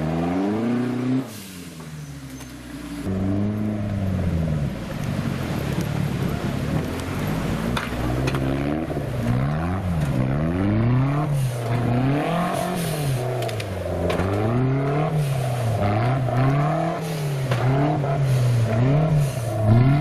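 Modified off-road 4x4's engine revving up and down over and over as it crawls over rocks. The level drops briefly about a second in. In the second half the revs rise and fall about once a second.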